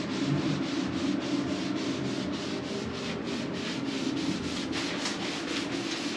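Hand sanding of fairing filler on a cabin wall with a sanding block, rubbing back and forth at about four strokes a second. The sanding works through a blue guide coat to show up the low spots in the fairing.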